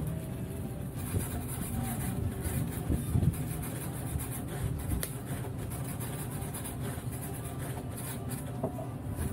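Stainless-steel two-tin cocktail shaker shaken hard, a steady metallic rattle of its contents against the tins.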